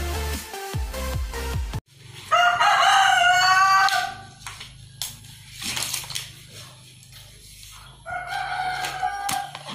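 Electronic intro music cuts off about two seconds in; then a rooster crows loudly for nearly two seconds, and crows again near the end, over a low steady hum with a few faint clicks in between.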